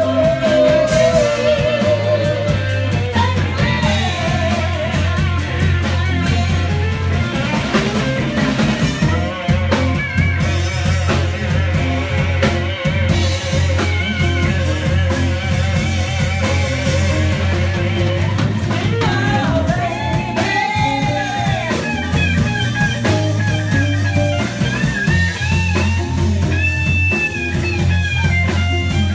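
Live band playing in a bar: electric guitar, keyboard and drum kit over a steady, low bass line.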